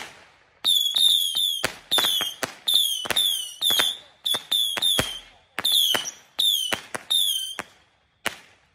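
A beehive rocket battery (fengpao) firing whistling rockets one after another, about two a second. Each is a sharp pop followed by a short whistle that drops slightly in pitch. The volley stops with a last lone crack near the end.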